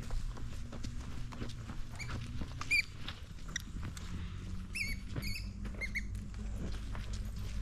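Dog-harness-mounted action camera jostling as the dog walks over leaf litter: a steady low rumble with scattered rustles and crunches. A few short, high squeaky chirps come about two seconds in and again around five seconds in.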